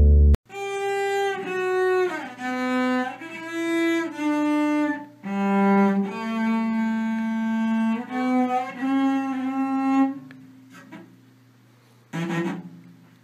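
Cello bowed in a slow melody of sustained notes, each held about a second. The playing breaks off about ten seconds in, and near the end a short rough burst comes as a cat paws at the bow.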